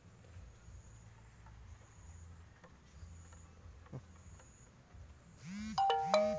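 Faint short high insect chirps repeating about once a second over a low steady background rumble. Near the end, a brief loud call with sweeping and held pitches breaks in.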